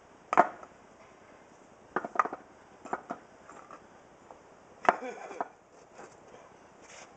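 Stones knocking together as rocks are set and stacked for a pond waterfall. There are separate hard clacks: one about half a second in, a few around two and three seconds, and the loudest near five seconds.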